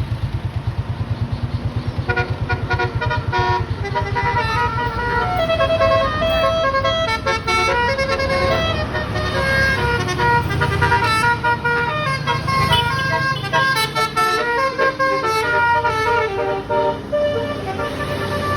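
Bus's telolet basuri musical horn playing a quick tune of changing notes, starting about two seconds in and running to near the end. Under it the bus engine runs, heard on its own at first.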